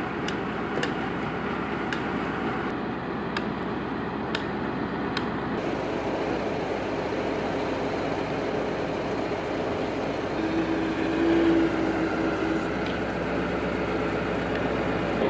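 Truck-mounted crane's engine running steadily as its hydraulics lift a load, with a brief steady whine about ten seconds in. A few sharp clicks come in the first five seconds.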